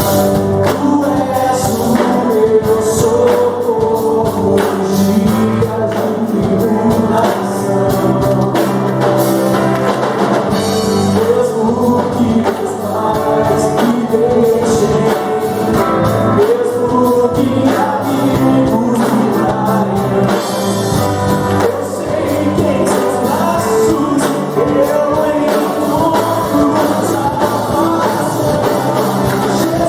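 Worship song sung over a live band of keyboard, electric guitar, drum kit and bass guitar.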